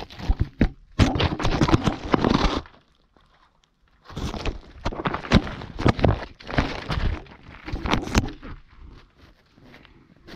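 A GoPro camera dangling on a rope scrapes, bumps and crackles against the dirt and rock walls of a narrow shaft as it is lowered and spins. The scraping comes in two long runs of crackling with sharp knocks, with a pause about three seconds in, and grows faint near the end.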